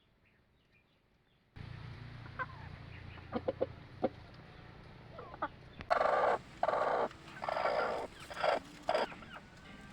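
Aseel-cross chickens clucking, starting about a second and a half in with short calls over a low steady hum, then louder, longer calls in the second half.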